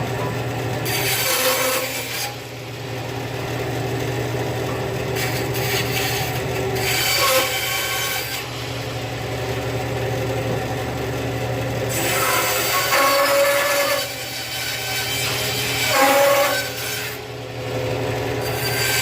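Bandsaw running with a steady motor hum, its blade cutting through wood with a rasping noise that swells and eases several times as the cut goes on.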